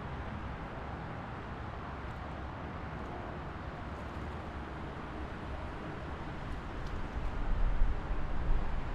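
Steady road noise of a car driving on a highway, with a stretch of louder deep rumbling starting about six and a half seconds in.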